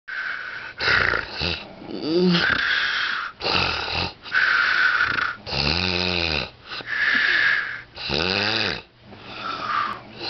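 A sleeping man snoring loudly, breath after breath with only short gaps. Some breaths are a low buzzing snore that wavers in pitch, and the others are a breathy hiss.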